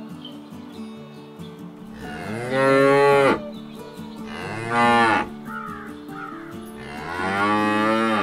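Cows mooing: three moos, the first and last long, the middle one short.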